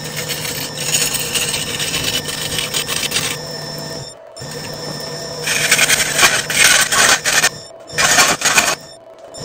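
A wood lathe spins a burl-and-resin blank while a hollowing tool cuts into it: a hissing, scraping cutting noise over a low hum, with thin high ringing tones. The sound breaks off sharply twice, about four and eight seconds in, and starts again.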